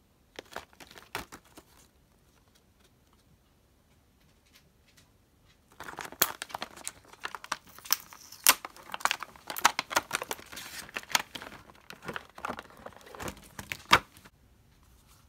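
Plastic blister packaging of an eraser set crinkling and tearing as it is opened by hand: a brief rustle near the start, then a long run of dense crackling from about six seconds in until shortly before the end.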